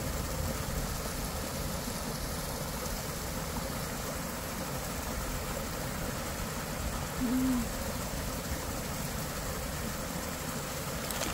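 Water from a hose gushing into a shallow stream: a steady splashing rush. A single short low tone sounds about seven seconds in.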